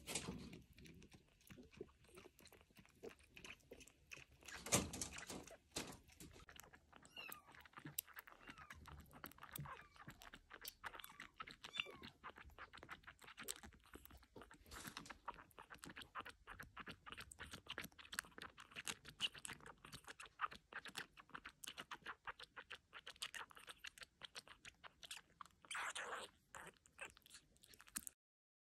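Kittens feeding: a rapid, faint run of small wet smacking and chewing clicks, which stops abruptly near the end.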